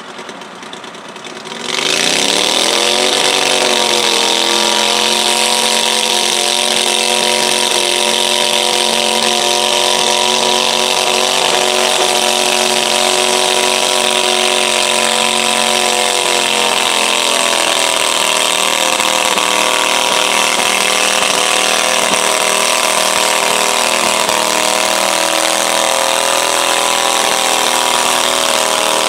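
Stock garden tractor engine revving up about two seconds in and then running hard at steady high revs under load as it drags a weighted stoneboat sled down the pull track. The pitch sags and wavers briefly partway through.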